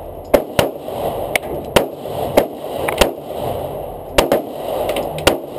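Handgun shots on a shooting range: about ten sharp cracks at an uneven pace, some coming in quick pairs, over a steady background noise.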